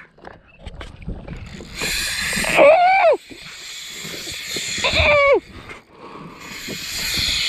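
Two short, drawn-out vocal cries from a man, each rising and then falling in pitch, about three and five seconds in. Around them come bursts of hissing, splashy noise from water and spray at the jetski.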